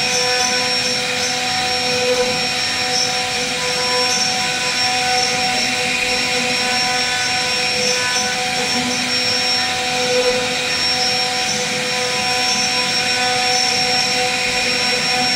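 CNC router spindle running steadily at speed, its bit cutting into a wooden door panel. It gives a high, even whine made of several steady tones over a rushing noise.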